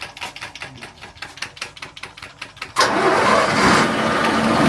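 An engine being turned over by its starter with a quick, even beat of about seven strokes a second, then catching about three seconds in and running loudly and steadily.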